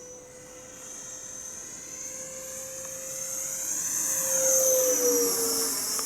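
80 mm electric ducted-fan RC model F-4 Phantom jet flying past: a high fan whine grows steadily louder, peaks about four and a half seconds in, then drops in pitch as the model goes by.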